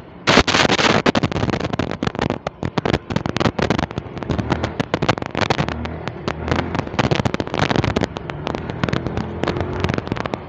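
Yamaha Mio i 125 scooter under way, heard as a dense crackling and popping on the rider's camera microphone from wind and vibration. The crackling starts about half a second in, over a faint low engine hum.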